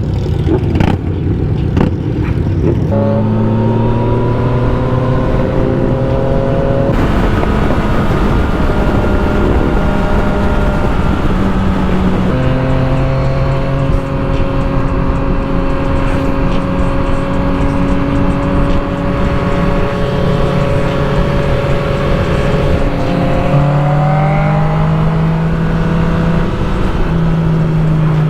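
Motorcycle engine running at a steady cruise under heavy wind rush on the rider's microphone; the engine note holds for several seconds at a time, shifts pitch a few times and rises near the end.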